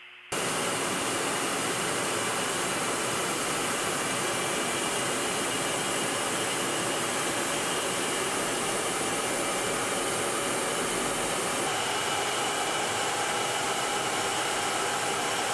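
Steady jet noise of an aircraft in flight: an even rushing sound with faint high whining tones, coming in abruptly at the start. A little past halfway through the whine shifts slightly lower.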